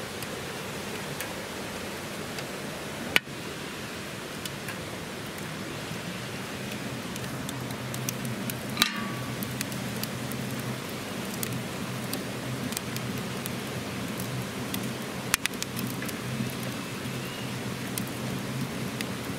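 Wood fire crackling and popping inside a small steel firebox wood stove, with two louder pops about three seconds and about fifteen seconds in, over a steady rushing background. A short squeak comes about nine seconds in.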